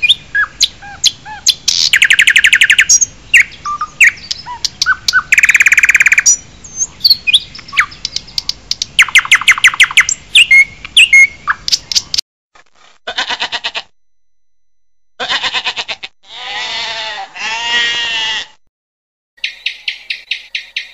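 Songbirds chirping and whistling, with three loud, fast buzzy trills among the calls. About twelve seconds in, the chorus cuts off. Separate calls follow: short rapid rattling trills, a longer call of rising and falling notes, and another quick pulsed series near the end.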